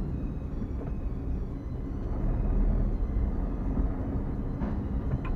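Steady low rumble of a car's engine and tyres heard from inside the cabin through a dash cam, with a couple of faint clicks near the end.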